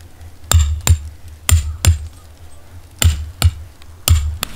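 Camp hammer driving a metal tent stake into snow-covered ground: eight sharp metallic strikes in pairs of two, the first of each pair heavier, with a thud under each clink.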